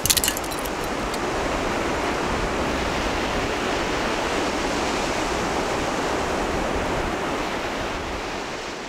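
Ocean surf breaking on a sandy beach: a steady wash of waves, fading out near the end. A few sharp clinks at the very start.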